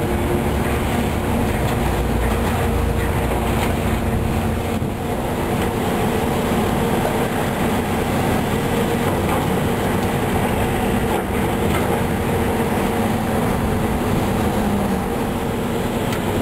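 Demolition machinery working through the metal of a boiler room: a steady engine drone with an unbroken clatter and grinding of metal debris.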